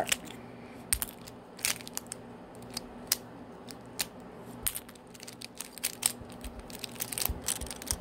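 Plastic Rubik's cube pieces clicking and clacking as the cube is twisted and pulled apart by hand. Sharp, irregular clicks, a few a second, coming closer together near the end.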